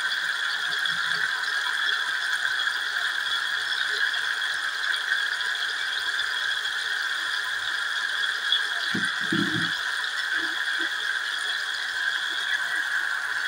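Potatoes and tomatoes frying in hot oil in a steel pan: a steady sizzle, with a brief low thump about nine seconds in.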